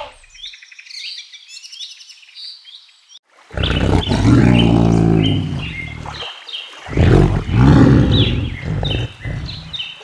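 Small birds chirping for about three seconds, then a tiger roaring twice, each roar long and deep, with the birds still chirping behind.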